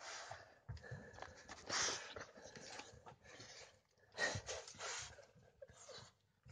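A border collie's faint breathing and panting, in a few short breathy bursts a second or two apart.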